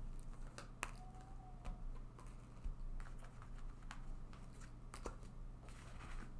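Tarot cards being handled, with irregular light clicks and taps as they are gathered up and moved about.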